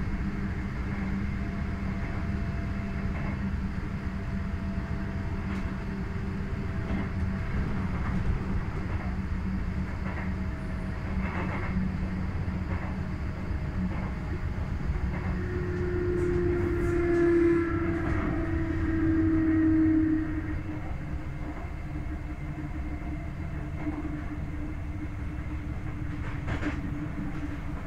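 A Sotetsu 8000 series electric train with Hitachi IGBT-VVVF traction equipment, heard from inside the car while it runs: a steady rumble of wheels on rails under a low hum, with a few rail-joint clicks. A louder tone swells and fades between about 15 and 20 seconds in.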